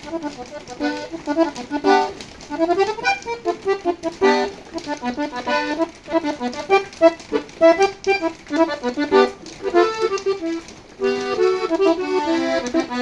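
Accordion playing a lively melody in quick runs of notes with chords underneath.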